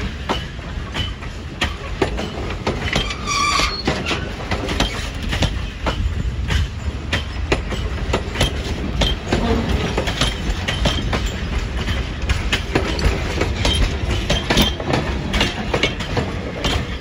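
Railroad passenger coaches and a caboose rolling past close by, with a steady low rumble and wheels clicking over the rail joints. A short high squeal comes about three and a half seconds in.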